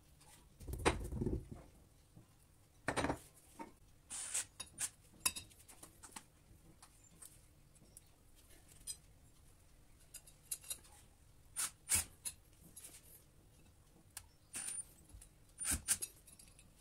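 Scattered light clicks, taps and knocks of hands handling tools and a metal tube at a wall, with a heavier knock about a second in and another about three seconds in.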